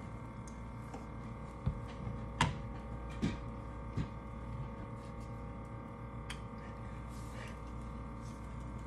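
Steady electrical hum with a few light knocks and clicks as plastic squeeze bottles of pancake batter are handled and set down, the loudest knock about two and a half seconds in.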